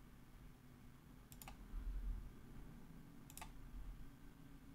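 Computer mouse clicks, two short double clicks about two seconds apart, placing points of a spline. A soft low thump, the loudest sound, comes near the middle.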